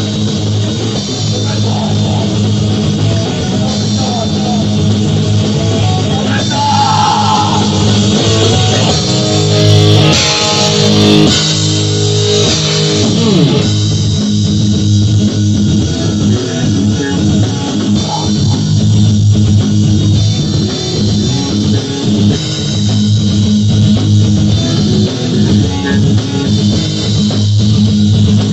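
Heavy metal music from a band's demo recording: distorted electric guitars over bass guitar, played loud and steady.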